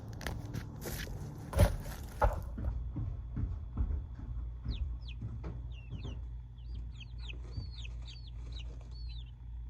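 Baby chicks peeping: a quick run of short, high-pitched, falling peeps through the second half, over a steady low hum. A few knocks and a rustle come in the first couple of seconds.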